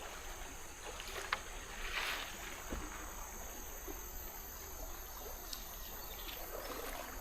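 Quiet river ambience on a bamboo raft: a steady high insect drone over soft water noise, with a brief swish of water about two seconds in and a few faint clicks.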